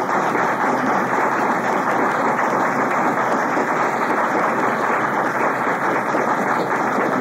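Audience applauding steadily, heard on an old audio cassette recording.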